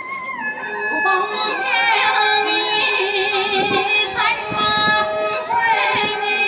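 Live traditional Vietnamese music: a single melody line that glides from note to note and holds its notes with a wavering vibrato.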